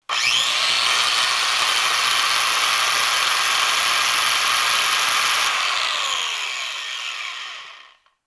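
Electric woodworking jointer starting up with a rising whine, running steadily at full speed, then switched off about six seconds in and winding down with a falling pitch until it stops near the end.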